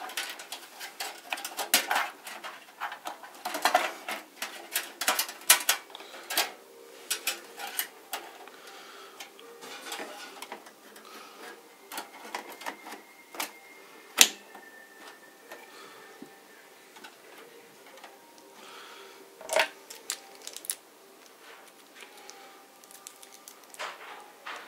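Clicks and knocks of a graphics card and PC case parts being handled and fitted back into a computer case. The clicks come thick and fast for the first several seconds, then thin out to a few single sharp clicks spaced apart.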